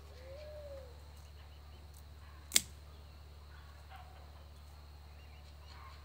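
A single sharp click about two and a half seconds in, over a faint steady insect buzz.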